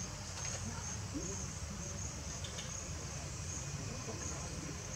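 Insects chirring in a steady, high-pitched, pulsing drone, with a low rumble underneath.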